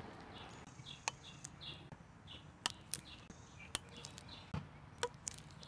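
Scattered light clicks and taps as rubber tube bands are handled and fitted onto a metal slingshot frame, with small birds chirping faintly in the background.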